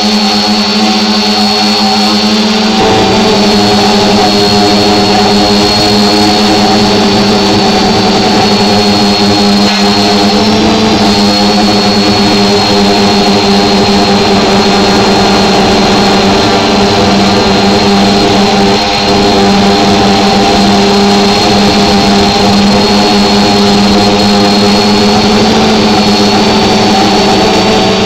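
Small camera drone's electric motors and propellers humming steadily while it hovers, heard close up from the drone itself. There are several tones at once, with a thin high whine over them, and the pitch shifts slightly about three seconds in.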